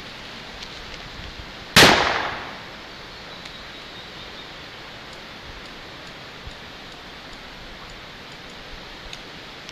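A single shot from a Colt .45 handgun about two seconds in, a sharp crack followed by a short echoing tail, over a steady outdoor hiss.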